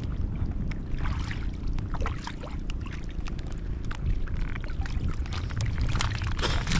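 Water splashing and knocking around a small fishing boat at sea, over a steady low rumble, with rain falling; short splashes come thickest near the end.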